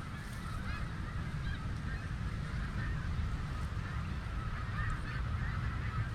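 A large flock of snow geese calling nonstop, a dense chorus of overlapping high-pitched honks, with a low wind rumble on the microphone.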